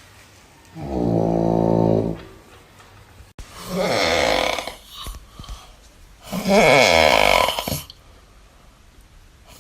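Cat snoring: three loud snores, each about a second and a half long, a couple of seconds apart. The first is low and steady; the later two waver in pitch.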